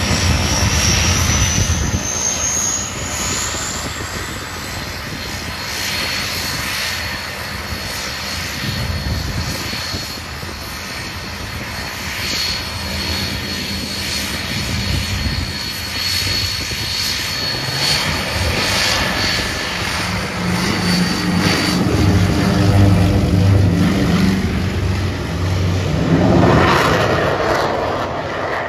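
Yak-110 aerobatic aircraft under power for takeoff: its twin radial piston engines and central turbojet running at high power, with a high jet whine rising in the first few seconds and then holding steady. The engines grow louder toward full power on the takeoff roll, loudest a little over two-thirds of the way in, then fade as the aircraft pulls away down the runway.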